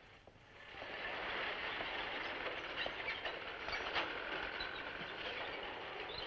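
Old flatbed truck driving past: engine and rattling body rise to a steady noise about a second in, with scattered knocks.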